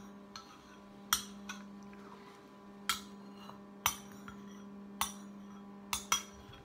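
Metal spoon clinking and scraping against a ceramic bowl as it is scraped out, a sharp clink every second or so, over a steady low hum.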